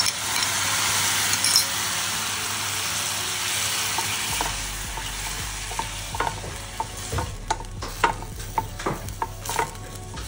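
Chopped onions and tomatoes sizzling in oil in a stainless steel pan, the sizzle thinning after the first few seconds. About six seconds in, a spatula starts stirring them, knocking and scraping against the pan several times a second.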